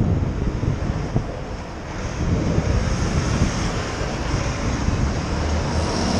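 Wind buffeting a helmet camera's microphone while cycling, over the low rumble of city traffic with vans and trucks nearby.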